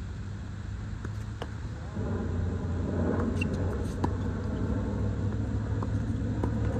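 Tennis ball struck by racquets a few times, each a sharp pop, over a steady low motor rumble that gets louder about two seconds in.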